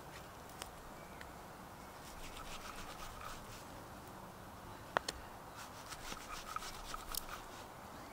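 A knife blade cutting and scraping through a fleshy bracket fungus on a log: faint, repeated scratchy strokes, with one sharp click about five seconds in.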